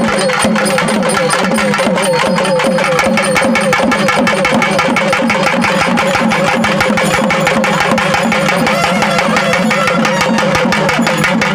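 Naiyandi melam folk band playing: stick-beaten thavil barrel drums in a fast, dense rhythm under a continuous, wavering melody line from a nadaswaram reed pipe.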